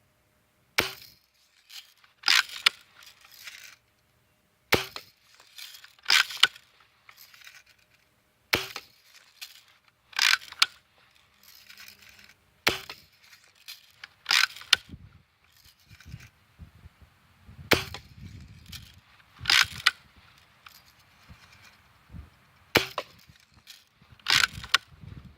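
Lever-action BB gun being cocked and fired over and over: sharp cracks in about six pairs, a second or two apart within each pair, roughly every four seconds.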